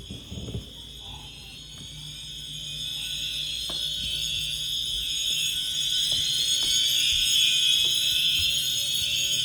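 Fire alarm sounding: a steady high-pitched tone with faint rising sweeps repeating through it, growing steadily louder. There are a few soft knocks near the start.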